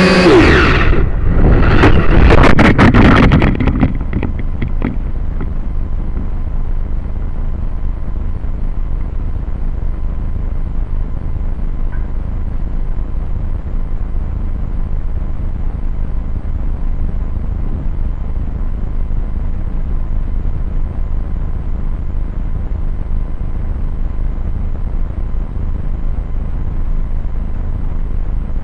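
A quadcopter's motor whine cuts off at the start, followed by about three seconds of loud crackling knocks as the craft crashes. After that comes a steady low rumble of wind buffeting the onboard camera's microphone while the downed quadcopter lies still.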